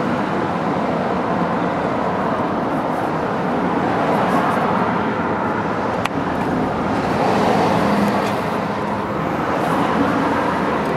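Steady road traffic noise, with a single sharp click about six seconds in.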